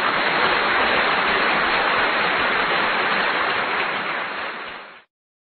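A steady, even rushing noise like rain or static, fading out and stopping about five seconds in.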